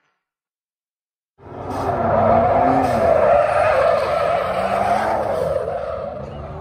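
Ford pickup truck drifting on asphalt: tyres squealing and skidding while the engine revs, its pitch rising and falling. It cuts in suddenly about a second and a half in, after silence.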